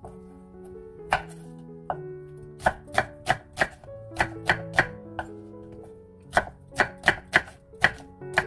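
A knife slicing a peeled onion into thick slices, each cut ending in a sharp knock on a wooden cutting board. The knocks come in runs of about three a second with short pauses between them, over soft background music.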